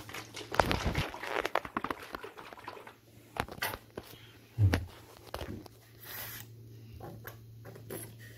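Hands working a plastic applicator bottle of tile grout whose nozzle has clogged: dense clicking and rustling of the plastic for the first few seconds, a short low thud a little past halfway, then a brief hiss and a few light ticks.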